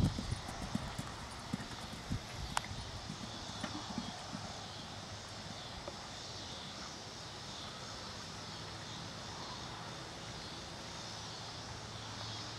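Hoofbeats of a cantering horse on sand footing, fading out over the first few seconds as the horse moves away. They give way to a faint steady low drone.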